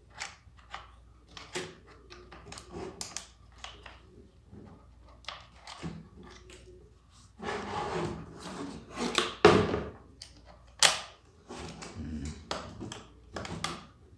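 Plastic parts of a Kärcher pressure washer being handled and fitted together: scattered clicks and knocks, a stretch of rustling from about seven to ten seconds in with a loud knock inside it, and a sharp click about eleven seconds in.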